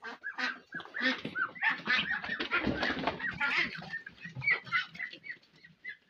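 A flock of farmyard poultry calling: many short, overlapping calls, thinning out near the end.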